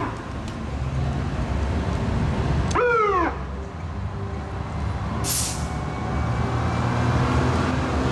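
Vintage fire engine's siren giving two short downward-gliding blips, one right at the start and one about three seconds in, over the low running of its engine. A short hiss of air from the brakes comes about five seconds in.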